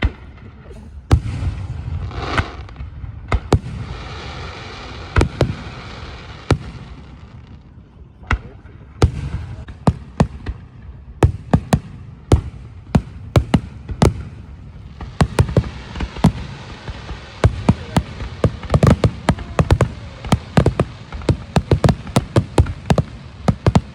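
Aerial fireworks bursting: scattered loud bangs with crackling, then from about 15 seconds in a dense run of rapid bangs and crackles.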